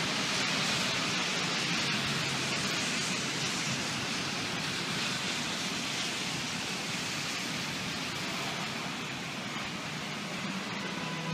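Heavy thunderstorm rain pouring steadily, a dense even hiss that eases slightly toward the end.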